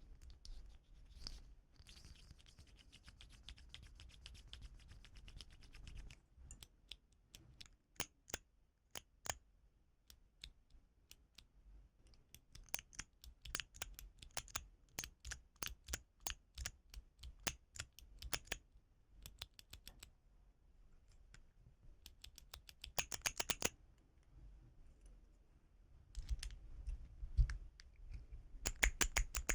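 Keys of a mini keyboard fidget toy being pressed, clacking in irregular runs of sharp clicks with quick rapid flurries near the end. A few seconds of fast scratchy rattling come first.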